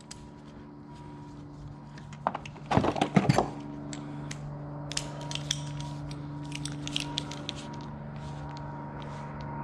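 Metal hand tools and sockets clattering as they are picked out of a steel toolbox, loudest for about a second near three seconds in, then scattered light clicks and taps as the tools are handled. A steady low hum runs underneath.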